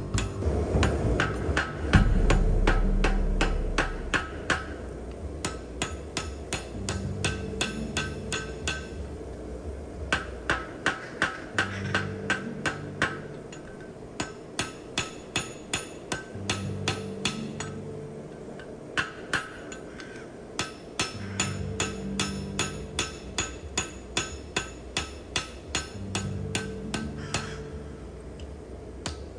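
Hand hammer striking a hot steel axe head on an anvil in runs of about three to four blows a second, with short pauses between the runs. Each blow carries a ringing anvil note.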